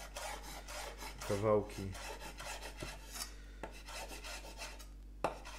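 Chef's knife chopping spring onions on a wooden cutting board: a quick run of crisp chops of the blade through the stalks onto the board, thinning out in the second half, then one sharper knock near the end.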